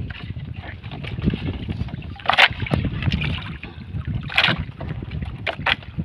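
Water slapping and splashing around a small wooden fishing boat at sea, with wind rumbling on the microphone; a few sharp splashes stand out, the loudest about two and a half and four and a half seconds in.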